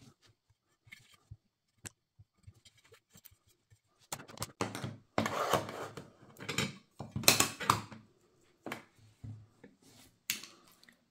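Hands handling small craft supplies on a desk: a few light taps at first, then from about four seconds in a run of irregular rustling, scraping and clattering strokes.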